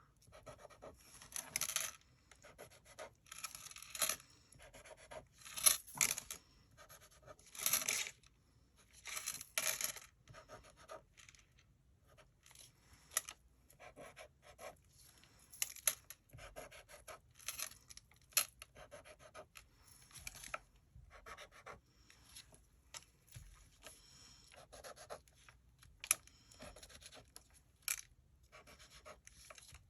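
A pen drawing small stars on a sheet, a run of short scratchy strokes at an irregular pace, heavier in the first third and lighter after.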